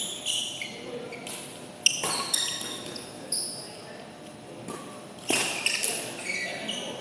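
Badminton rally: players' court shoes squeaking on the floor and the sharp smacks of rackets hitting the shuttlecock, the loudest hit just under two seconds in.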